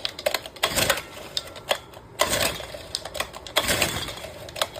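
Recoil starter of a two-stroke brush cutter engine pulled several times, each pull a short rattling whir as the engine turns over without firing: the engine won't start despite spark at the plug and fuel at the carburettor.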